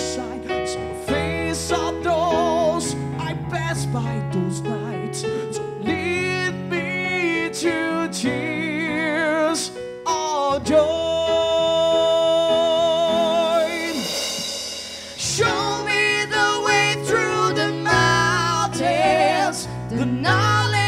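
Live metal opera band playing: sung vocals with vibrato over keyboards, electric guitars and drums. About halfway through the voice holds one long note, followed by a cymbal swell.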